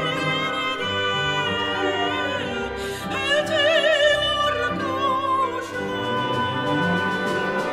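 Operatic soprano singing with vibrato over a symphony orchestra, in an orchestral arrangement of a Turkish folk song. The vibrato is widest on held notes in the middle.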